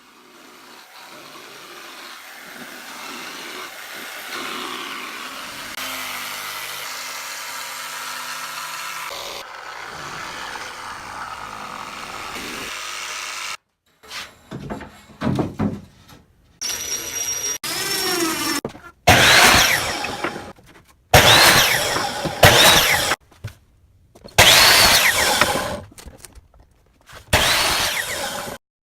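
Power tools at work in the shop: one tool runs steadily for about thirteen seconds, then comes a string of short bursts of drilling and sawing, several winding down in pitch, one after another with brief silences between.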